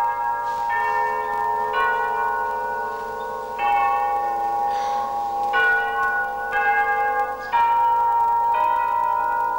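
Music of ringing, bell-like tones: a new chord sounds roughly every one to two seconds and rings on until the next.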